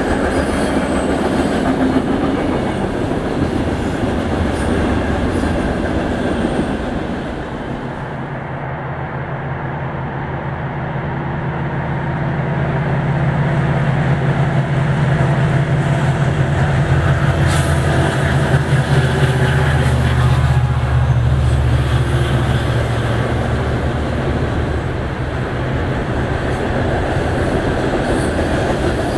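Freight train passing. The cars rumble and clatter on the rails, then from about eight seconds in a diesel locomotive's steady engine drone builds, holds strongly for several seconds and eases off as the cars roll by again.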